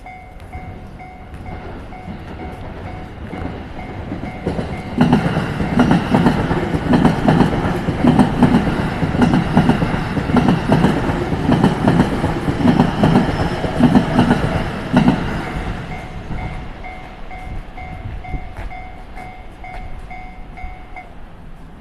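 Japanese level-crossing warning bell ringing in a steady repeating ding. About five seconds in, a JR E257 series limited express train passes over the crossing for roughly ten seconds, its wheels clacking rhythmically over the rail joints and drowning out the bell. The bell rings on after the train has passed and stops near the end.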